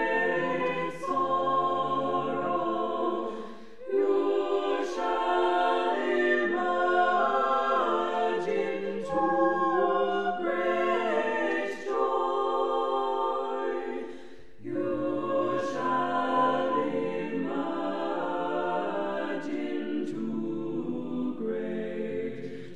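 Unaccompanied voices singing a Christian choral song in several parts, with no instruments. The phrases break briefly about four and fourteen seconds in.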